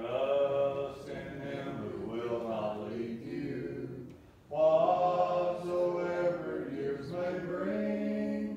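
A congregation singing a hymn a cappella, many voices together without instruments, in two phrases with a short breath pause between them about halfway through.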